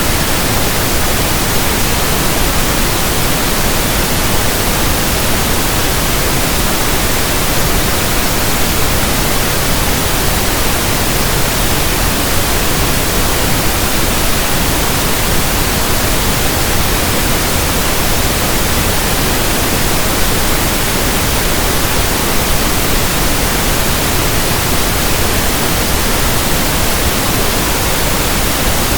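Steady synthetic pink noise: an even, unchanging hiss across the whole range, with no tones, rhythm or events.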